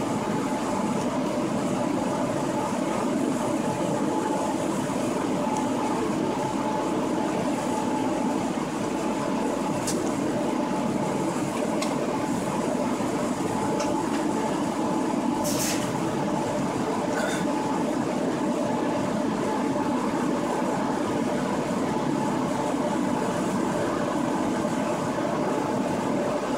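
DB Class 143 electric locomotive running at speed, heard from inside its driver's cab: a steady rolling and running noise with a hum of several steady tones. A few brief clicks and one short hiss about fifteen seconds in break through it.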